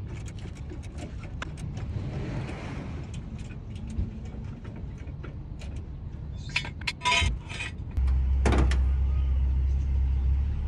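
Steady low rumble of a motor vehicle with scattered clicks and knocks; about eight seconds in, a louder steady low hum sets in and keeps going.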